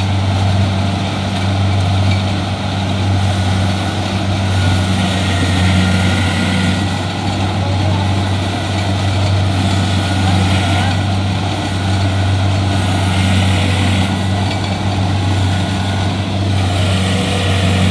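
Kubota rice combine harvester's diesel engine running steadily with a constant low hum.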